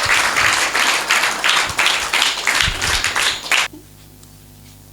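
Congregation clapping and applauding. It cuts off abruptly about three and a half seconds in, leaving only a faint low hum.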